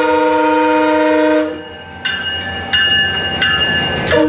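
Train horn sounding a long, steady blast that cuts off about a second and a half in. A bell then rings with evenly spaced strikes roughly every 0.7 seconds, and two short horn toots come near the end.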